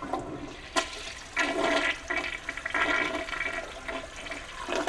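Public restroom toilet flushing, water rushing through the bowl, with a sharp click about a second in.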